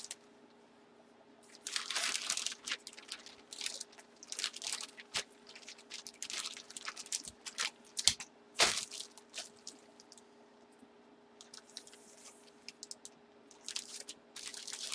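Plastic bags and packaging crinkling and rustling in irregular bursts as they are handled, with one sharper crackle about nine seconds in.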